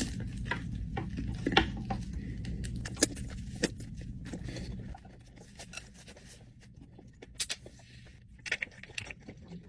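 Someone eating: scattered short clicks and light clatter of chewing and handling food, over a low hum that stops about five seconds in.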